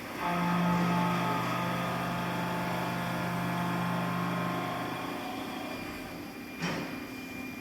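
Haas VF4 CNC mill with a 3-inch, 7-insert face mill cutting metal: a steady pitched hum over the spindle noise, fading out after about five seconds.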